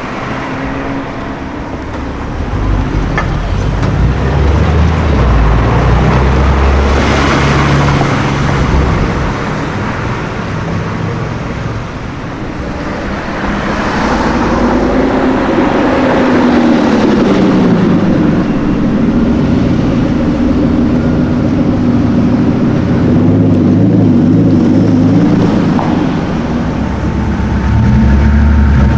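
Loud sports-car engines and exhausts in street traffic. Cars pass by with a swell of exhaust and tyre noise about seven and fourteen seconds in, and an engine's pitch rises and falls between about fourteen and twenty-six seconds as it revs.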